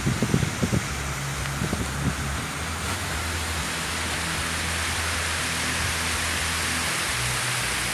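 Mountain stream rushing over boulders, a steady hiss that swells a little partway through. A few dull thumps come in the first two seconds.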